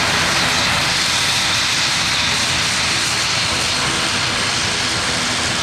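Embraer ERJ-195 jet's GE CF34 turbofan engines running loud and steady close by, a dense jet rush with a high whine on top.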